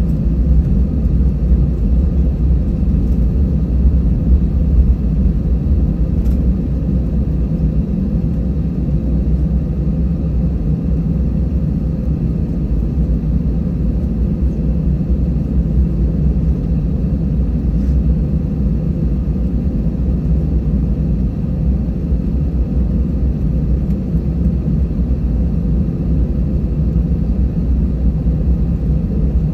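Steady low rumble inside the cabin of an Airbus A320-200 taxiing: the jet engines running at idle and the airframe rolling along the taxiway.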